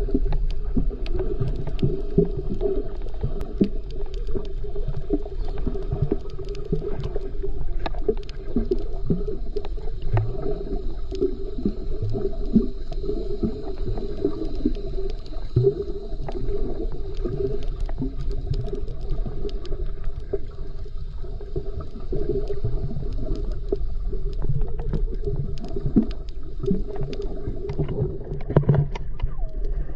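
Speedboat engine running steadily at speed, a constant drone with frequent short thuds and splashes over it.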